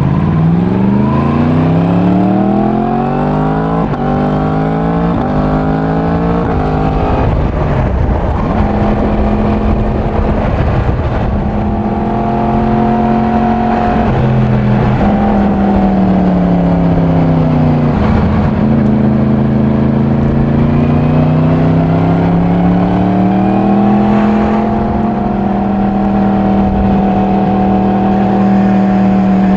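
Yamaha MT-10's crossplane inline-four engine with stock exhaust, ridden gently while still being run in. It accelerates through several upshifts, the pitch climbing and dropping back with each gear, then settles into a steady cruise. About two-thirds of the way through it eases off briefly, then pulls again.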